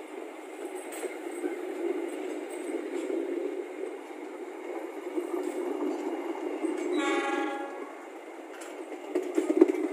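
Passenger coaches of the KA Mutiara Selatan rolling past close by, their wheels rumbling steadily on the rails. A train horn sounds briefly about seven seconds in, and near the end there is louder clattering of wheels over the track.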